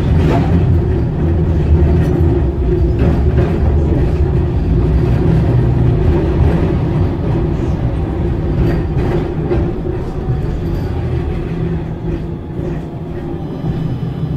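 Solaris Tramino S105P tram running on its rails: a steady low rumble with a few short knocks, growing quieter over the last few seconds.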